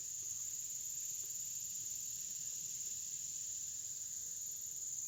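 Steady, high-pitched drone of insects, an unbroken chorus with no pauses.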